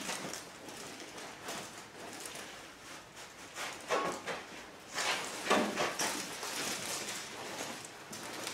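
Heavy fiberglass welding blankets rustling and scraping as they are wrapped and tucked tight around a freshly welded axle housing, holding in the heat so the cast iron and steel welds cool slowly and don't crack. The rustle is irregular, with a few louder scrapes about four and five seconds in.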